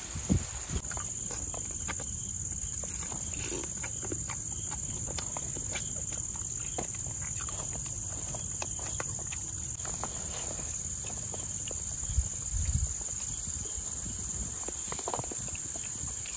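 A steady high-pitched chorus of insects such as crickets, with scattered small clicks and knocks. Low thumps come just after the start and again about twelve seconds in.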